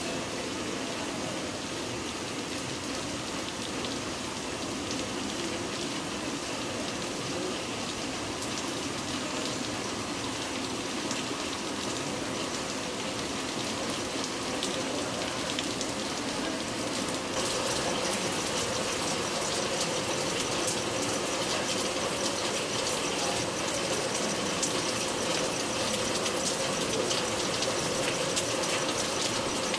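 Steady rushing water, getting louder and hissier a little past halfway through.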